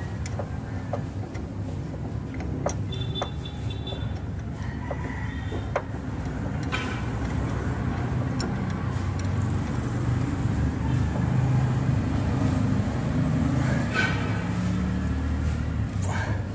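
A steady low rumble of a vehicle engine, growing louder about a third of the way in and staying strong, with scattered light metallic clicks of tools being set on the steering rack end.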